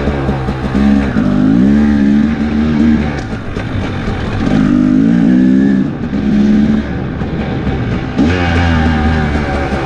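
2017 Husqvarna TE300's single-cylinder two-stroke engine under way, its pitch rising and falling with throttle and gear changes. The revs ease off about three seconds in and pick up sharply again near the end.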